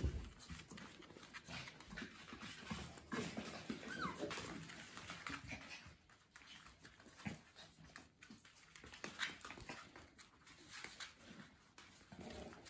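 Papillon puppies play-fighting on a hard floor: quiet scuffling and scattered claw clicks, with a short high whine about four seconds in.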